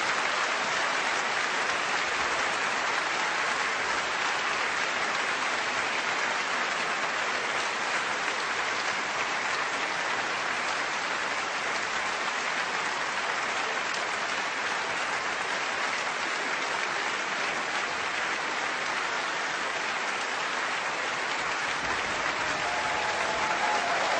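Concert hall audience applauding steadily after an orchestral performance.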